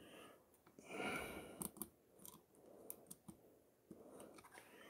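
Faint handling noise: a short rustle about a second in, then a few light clicks of small plastic Lego Dots tiles being picked through on a tabletop.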